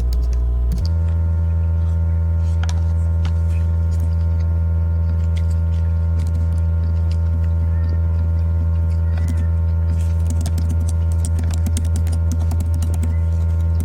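A loud, steady electrical hum with a stack of even overtones, which shifts in pitch slightly about a second in. Faint scattered clicks sound over it.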